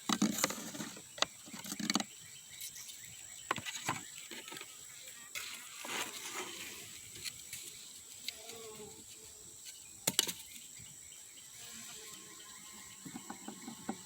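Scattered clicks, taps and light knocks of hands handling beehive equipment, over a steady high insect drone.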